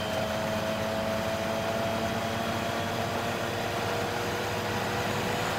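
Steady engine and road noise of a semi truck cruising on the highway, heard from inside the cab, with a faint tone that slowly drops in pitch.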